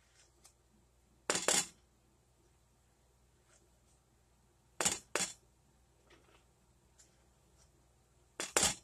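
A plastic scoop knocks against a plastic measuring cup and a flour canister as flour is scooped out and measured. It comes in three short bursts, each two quick knocks, about three and a half seconds apart.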